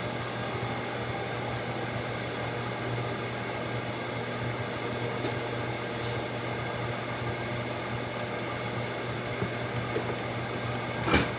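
Microwave oven running with a steady hum. A single short knock comes near the end.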